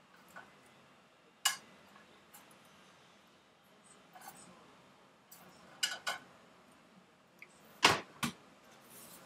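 Kitchen utensil clinking and knocking against a plate and frying pan while serving food, a few scattered clicks with the loudest pair of knocks near the end.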